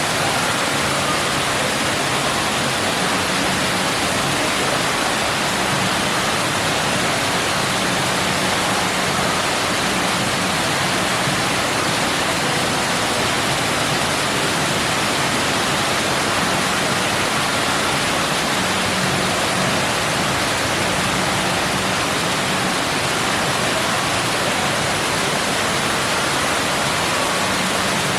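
Water pouring down an artificial indoor rock waterfall, a steady rushing splash.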